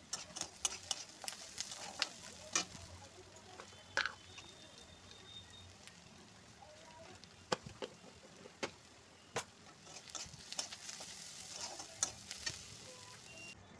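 Sliced onions sizzling in hot oil in a kadhai while a steel slotted spatula stirs them, the spatula clicking and scraping against the pan every second or so.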